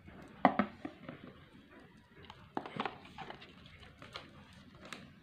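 Light knocks and clicks of a smartphone being handled: a sharp pair of knocks about half a second in, another cluster near three seconds, and a few lighter ticks.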